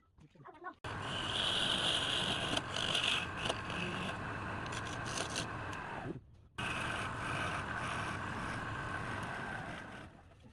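A woodworking power tool running against wood with a harsh scraping noise. It starts abruptly, stops briefly about six seconds in, then runs again until near the end.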